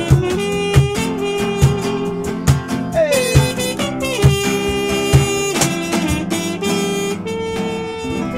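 Trumpet playing a held melody, with a falling slide about three seconds in, over acoustic guitars strumming a steady rhythm.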